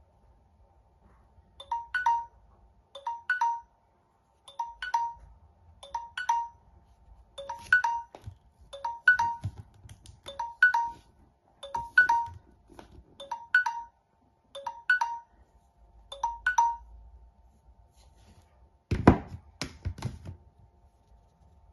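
Samsung Galaxy S9 timer alert going off: a short two-note chime repeating about every one and a half seconds, eleven times, then cut off as the timer is dismissed. A few knocks near the end as the phone is handled.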